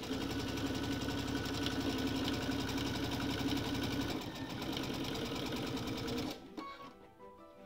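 Electric sewing machine stitching a seam at a steady speed, with a rapid, even needle rhythm, stopping about six seconds in. Soft background music can be heard underneath.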